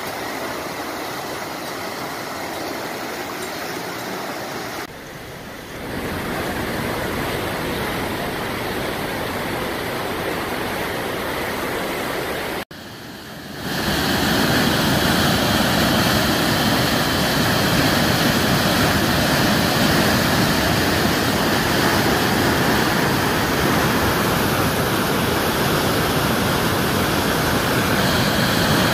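A swollen river in flood rushing past as a churning, muddy torrent: a steady rushing noise. The sound dips briefly about five seconds in and cuts out for a moment near thirteen seconds, then comes back louder.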